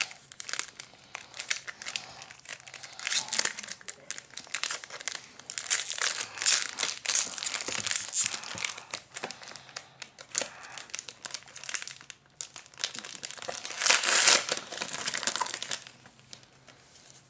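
Foil trading-card pack wrappers crinkling and tearing as hands open packs of baseball cards, in irregular crackles with louder bursts several times, the loudest about 6 to 8 seconds in and again around 14 seconds.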